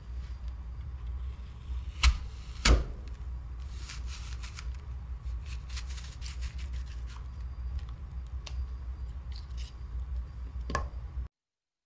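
Apple corer pushed into a whole apple: two sharp clicks about two seconds in, then a stretch of crisp crunching as the blade cuts down through the fruit, and another click near the end, over a steady low hum. The sound cuts off suddenly just before the end.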